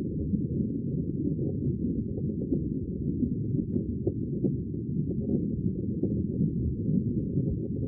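Sea water making a steady, muffled low rumble, with no separate wave breaks.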